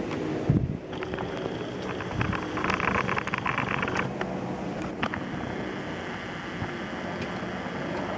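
Helicopter passing overhead and moving away, its rotor noise fading to a distant rumble. A thump about half a second in and a short rapid rattle about three seconds in.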